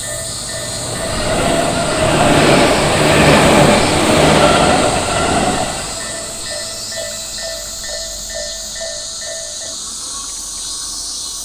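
A Tobu Tojo Line train passing over a level crossing, its rumble swelling and fading over about five seconds. Throughout, the crossing's warning bell rings in an even repeat of about three strokes a second, stopping near the end.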